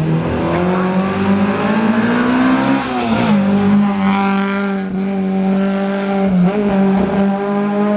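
Peugeot 205 rally car's four-cylinder petrol engine at high revs: the pitch climbs for about three seconds, drops sharply with a gear change, then holds high with another brief dip near the end.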